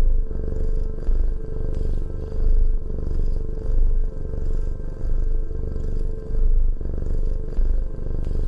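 Domestic cat purring steadily close up: a low rumble that swells and eases with each breath, about once every second or so.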